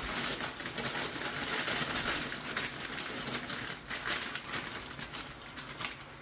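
Stir-fried vegetables sizzling and crackling in a hot wok, a steady hiss full of irregular small pops that fades slightly toward the end.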